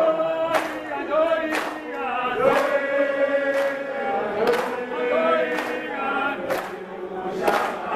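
A crowd singing together, mostly men's voices holding long notes, with rhythmic hand-clapping about once a second.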